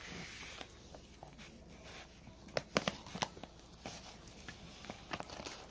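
Poodle eating soft roasted sweet potato: faint wet mouth clicks and smacks, with a few sharper clicks about two and a half to three and a half seconds in.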